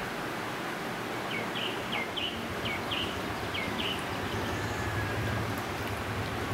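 Steady outdoor background noise with a quick run of short bird chirps in the middle, and a low hum that builds up near the end.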